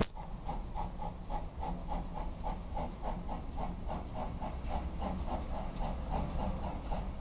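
GWR 0-6-0 pannier tank steam locomotive 9644 working a train: an even, rapid exhaust beat of about five chuffs a second over a steady low rumble.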